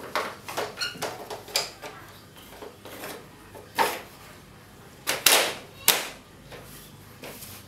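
Plastic clicks and knocks from the front grille panel of a wall-mounted split air conditioner's indoor unit being lowered and pressed shut, with the loudest snaps about five to six seconds in.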